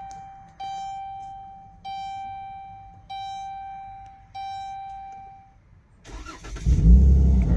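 Dashboard warning chime of a 2012 Dodge Grand Caravan ringing five times, about once every second and a quarter. About six seconds in, the van's 3.6L V6 cranks and fires, and it keeps running loudly; this is the test start after the throttle body was cleaned to cure a crank-but-no-start.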